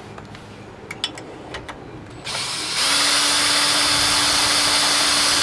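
A few light metal clicks from handling parts, then about two seconds in a power tool starts and runs steadily at one speed for about three seconds, a loud hiss with a single steady hum under it.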